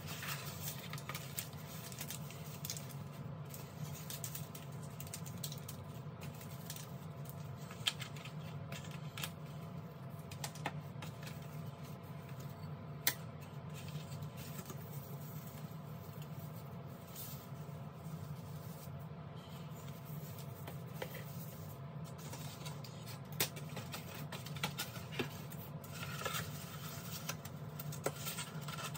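A cardboard keyboard-kit box being opened and its parts unpacked by hand: cardboard sliding and rustling, with scattered light clicks and taps as flat plates, a circuit board and small bags are set down on a desk. A steady low hum runs underneath.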